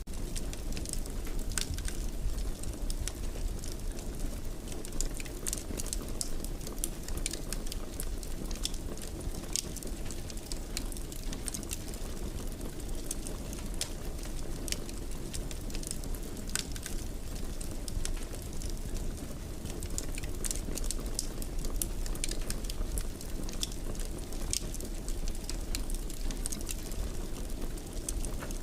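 Wood fire burning in a fireplace: a steady low rumble of flames with frequent small crackles and pops at irregular intervals.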